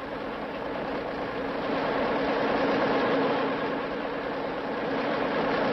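Racing car engines on an old film soundtrack, growing louder over the first couple of seconds as the cars approach, then running steadily.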